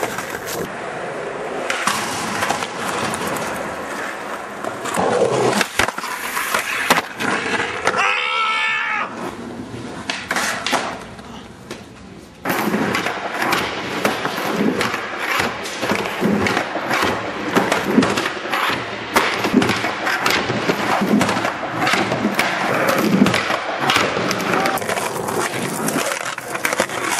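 Skateboards rolling on concrete and pavement, with the steady grind of the wheels broken by many sharp pops, board slaps, grinds and landings across several tricks. The level drops for a few seconds and then jumps back up abruptly about twelve seconds in.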